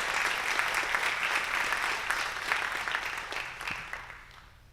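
Congregation applauding, the clapping fading away over the last second or so.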